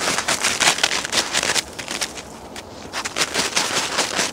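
Golden retriever digging in snow with its front paws: quick runs of crunching, scraping strokes, in two spells with a pause of about a second and a half in the middle.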